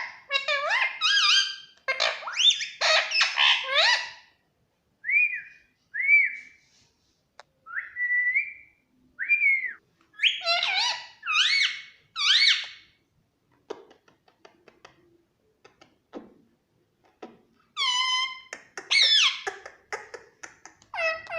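Indian ringneck parakeet whistling and chattering in rapid runs of sliding, ringing calls, with a string of single short whistles in between and a few soft clicks before a last loud run near the end.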